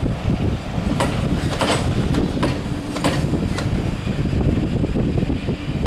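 Railway passenger coaches rolling past, wheels clicking over the rail joints about every half second over a steady low rumble.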